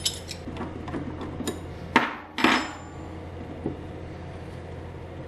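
Metal hand tools knocking and clinking on a workbench as a slide-hammer blind bearing puller and a spanner are handled, with two louder knocks about two seconds in.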